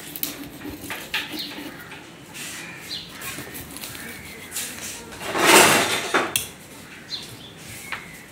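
Knife cutting into a large barracuda behind the head: scattered scrapes and clicks of the blade against scales and the steel counter, with one louder, longer scrape about five and a half seconds in.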